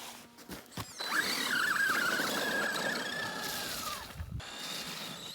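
Electric RC car's motor and gear drivetrain whining at high revs, its pitch wavering, then holding steady, then dropping away about four seconds in.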